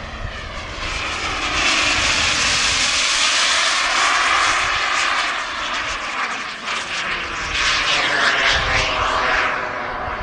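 Model jet's turbine engine as the plane passes overhead: a loud, dense rush and whine that swells about a second in, with the pitch sweeping as it flies by, and fades near the end.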